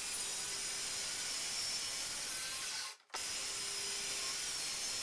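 Makita circular saw cutting through 18 mm plywood, a steady hiss of the blade in the wood that breaks off for a moment about three seconds in.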